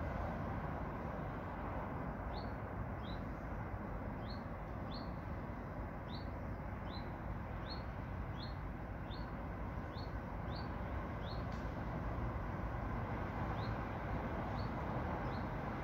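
A small bird repeatedly giving short, high chirps, roughly one or two a second, with a brief pause about three-quarters of the way through before it resumes, over a steady low background rumble.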